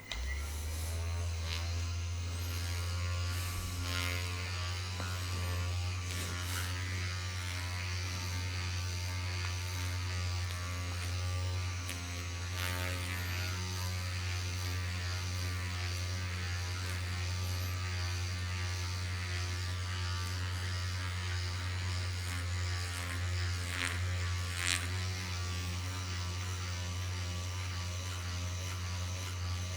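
A small electric motor buzzing steadily, switched on abruptly at the start, with a few light knocks over it.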